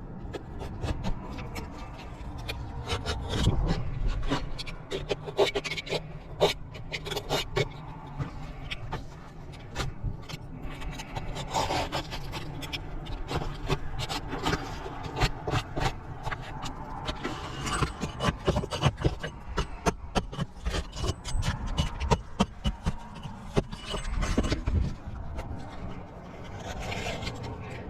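Roof shingles being worked loose and pulled away by hand: irregular scraping and rubbing with many scattered clicks and knocks.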